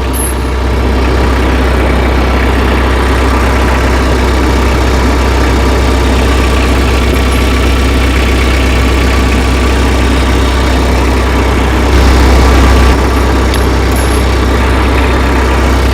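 Tractor engine idling steadily, briefly louder for about a second near the twelve-second mark.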